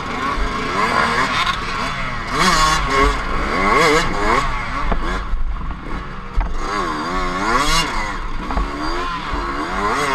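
Dirt bike engine revving hard, its pitch rising and falling again and again as the throttle is worked and gears change.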